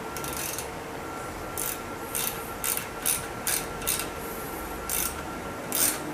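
A run of about eight short, irregularly spaced scraping or rasping strokes, as from hand tool work, over a faint steady tone.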